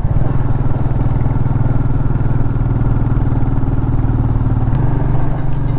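Royal Enfield Meteor 350's single-cylinder engine running steadily under way, heard from the rider's seat, with a slight change in its note near the end.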